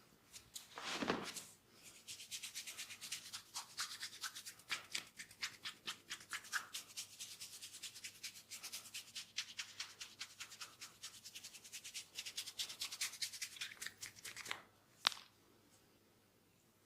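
Fingers rubbing and scratching through hair on a scalp in a head massage, in quick, even strokes several times a second, with one sharp click near the end.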